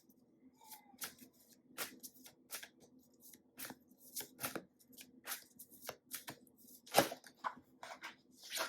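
Tarot cards being shuffled by hand: a run of short, irregular papery strokes, about two or three a second, with one sharper stroke about seven seconds in.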